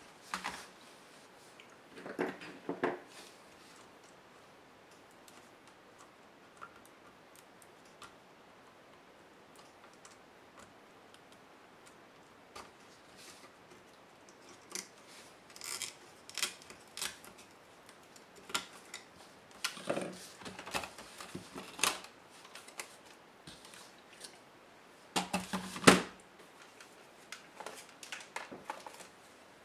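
Laptop plastic case and metal parts being handled by hand during disassembly: scattered clicks, taps and small rattles in irregular bunches, with the loudest knock about 26 seconds in.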